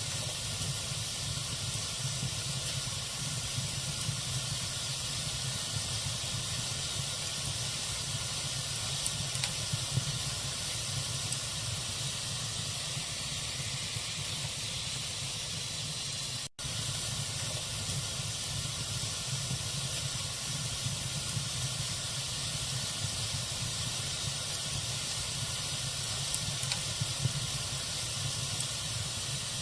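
Log fire burning with a steady hiss and scattered small crackles, and a few sharper pops about ten seconds in and again near the end. The sound cuts out for an instant just past the middle.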